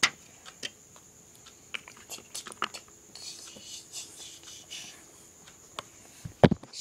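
Small toy pieces clicking and tapping as they are handled and set down, with a louder knock near the end.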